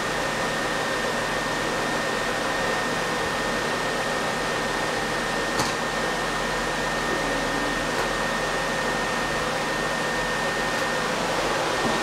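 Canister vacuum cleaner running steadily, a constant rush of air with a steady high motor whine. A small click about five and a half seconds in.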